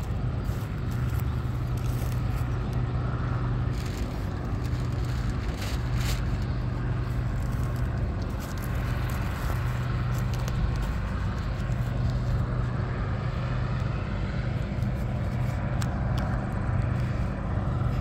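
Gleaner combine running while harvesting soybeans: its engine and threshing machinery make a low, even drone, with a few faint clicks.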